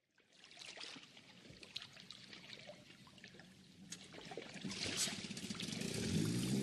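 Water trickling and splashing with small crackly drips, growing louder toward the end. A low steady pitched sound, likely the start of music, comes in near the end.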